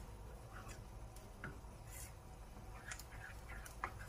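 Wooden spoon stirring a thick milk-and-flour cream sauce in a frying pan: soft scrapes against the pan and wet squelches, scattered a few times a second over a faint steady low hum.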